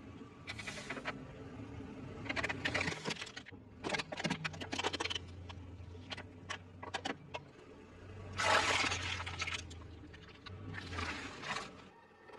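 Close-miked eating sounds: repeated bursts of chewing and crunching with small sharp clicks between them, over a low steady hum.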